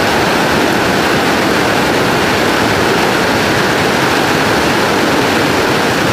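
Rocky mountain river rushing over boulders in white-water rapids: a loud, steady rush of water.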